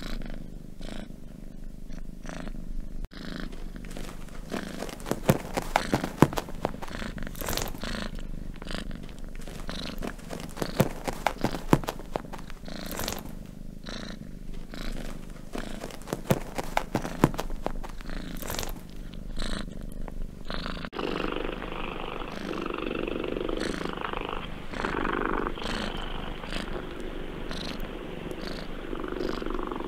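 Domestic cats purring up close, a rhythmic pulsing purr that rises and falls with each breath. Its character changes abruptly about three seconds in and again about two-thirds of the way through, as one cat's purr gives way to another's, and a few sharp clicks stand out in the middle.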